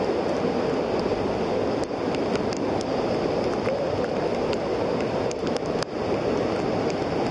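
Waterfall rushing steadily close by, with a scattered few sharp ticks over it.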